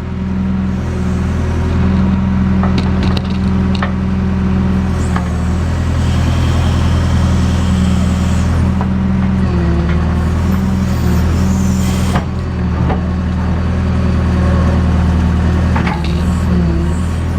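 JCB backhoe loader's diesel engine running steadily at working revs while digging, its pitch shifting a few times as the load changes. Occasional sharp clanks and knocks sound over it.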